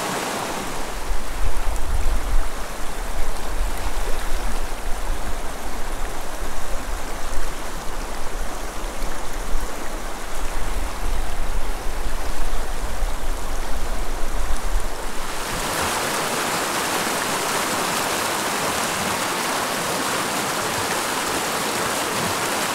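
Creek water rushing over rocks, a steady hiss of flowing water. For the first part a gusty low rumble of wind on the microphone rides over it; about 15 seconds in the sound changes suddenly to a steadier, brighter rush of water from a small riffle.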